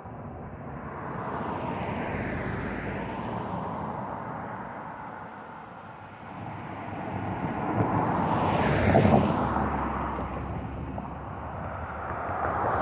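Road vehicles driving past one after another, tyre and engine noise swelling and fading as each goes by; the loudest pass comes about two-thirds of the way through, and a pickup truck is passing near the end.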